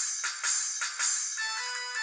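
COSUN 9958 mobile phone's loudspeaker playing ringtones, with no bass. First comes a percussive beat of roughly two strikes a second; about a second and a half in it changes to a melody of clear, steady notes as the next ringtone starts.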